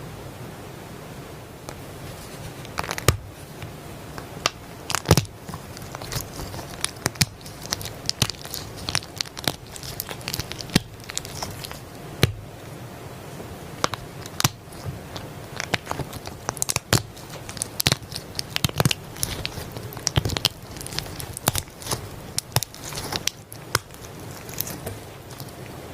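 Soft slime being squeezed, poked and stretched by hand, giving irregular sticky pops and crackles.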